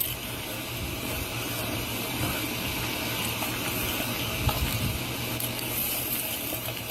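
Steady hissing background noise with a low hum, and a brief faint thump about four and a half seconds in.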